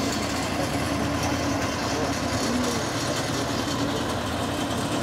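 Diesel engine of a red farm tractor running steadily at a constant speed, driving a water pump whose intake pipe draws from the flooded canal trench.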